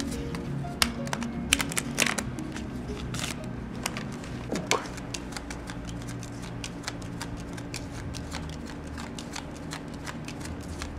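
A deck of playing cards being shuffled and then dealt one at a time onto a stone floor: a run of quick light slaps and clicks, with a few sharper snaps in the first five seconds.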